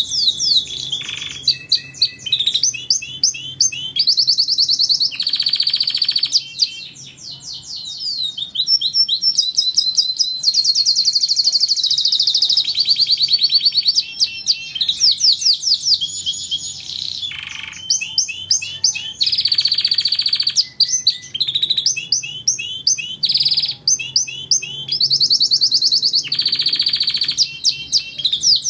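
Domestic canary singing continuously: long rapid trills and rolls of quickly repeated notes, with short sweeping whistles and a few buzzy held notes between phrases.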